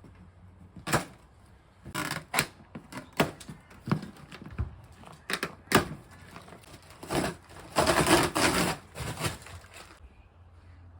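A string of irregular knocks, thuds and clatter, about a dozen sharp hits, with a longer scraping rustle around eight seconds in.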